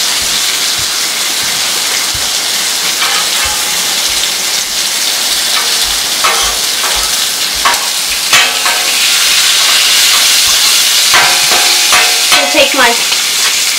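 Bacon strips frying on a Blackstone flat-top griddle at about 300 degrees, a steady sizzle, with a few short metal scrapes and knocks from a spatula and bacon press on the griddle.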